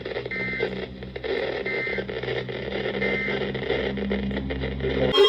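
EAS/SAME end-of-message data bursts from a NOAA Weather Radio receiver: three short two-tone warbling bursts about a second apart, marking the end of the alert, over low hum and radio noise.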